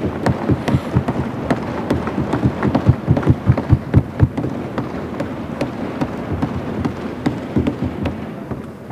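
Many hands thumping on wooden desks, the desk-thumping with which assembly members greet a speaker: a dense, uneven clatter of thumps that thins out and fades near the end.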